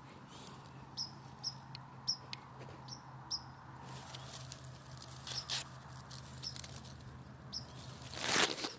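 A small bird chirping, short high chirps about two a second, thinning out after the first few seconds. Crackling rustles build toward the end.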